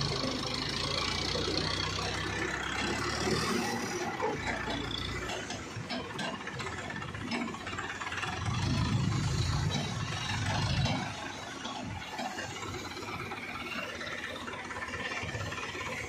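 Diesel engine of a mobile crane running as it hoists a chained log. Its hum is strong at first, drops back after about three seconds, and swells again for about two seconds near the middle.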